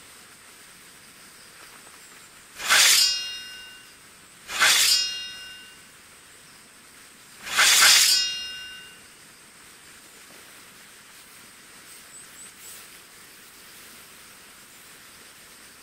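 Three metallic sword clashes, each ringing out and fading over about a second. The second comes about two seconds after the first, and the third about three seconds after that.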